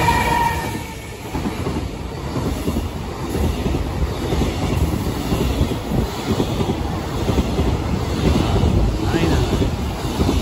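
A JR Freight EF210 electric locomotive passes close by with a high whine that fades about a second in. Its container wagons then roll past with a steady rumble and a clickety-clack of wheels over the rails.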